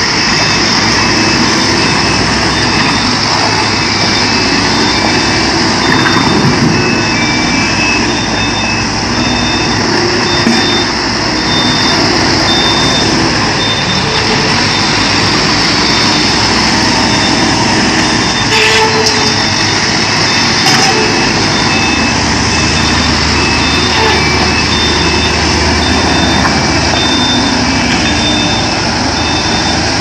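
Diesel engines of two backhoe loaders running steadily as they dig and load a dump truck, with a reversing alarm beeping over and over.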